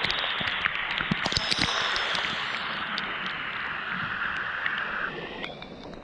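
Tumalog Falls' spray showering down over mossy rock, a steady rush of falling water with many drops striking the camera and microphone as sharp ticks. The rush drops off and gets quieter about five seconds in.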